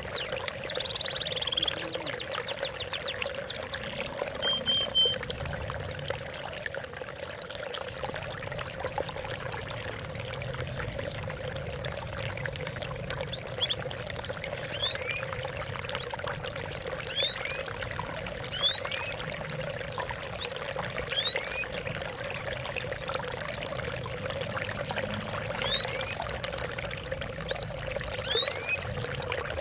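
Water trickling and pouring steadily, with small songbirds chirping over it: a quick trill about two seconds in, then scattered short sweeping chirps.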